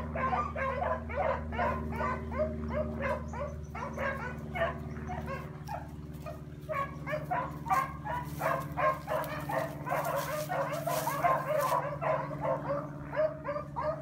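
A pack of hounds baying in full cry while running a rabbit. Many dogs' voices overlap in a rapid, unbroken chorus.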